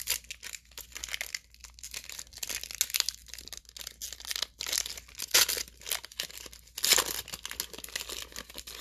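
Foil wrapper of a trading-card pack being torn open and peeled apart by hand: continuous crinkling and tearing, with the loudest rips about five and a half and seven seconds in.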